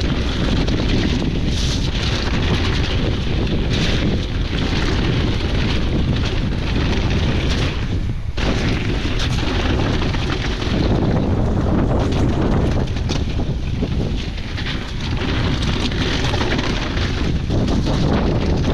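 Electric mountain bike ridden down a wet, muddy trail: wind buffeting the microphone over the continuous rattle of the bike and its tyres on the rough ground, with frequent sharp knocks from bumps.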